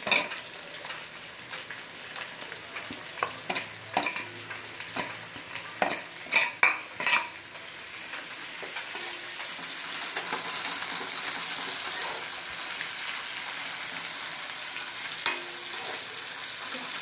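Sliced onions and green chillies frying in hot ghee and oil in a metal kadai, sizzling, while a metal ladle stirs them and clinks and scrapes against the pan. The clinks are sharpest in the first half, and the sizzle grows louder after about eight seconds.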